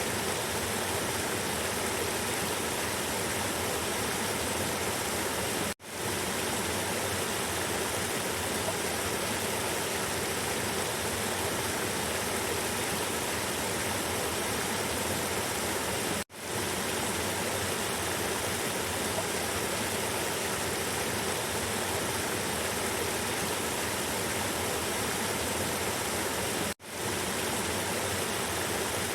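River water flowing and rushing steadily. The sound cuts out briefly three times, about ten seconds apart, fading back in each time.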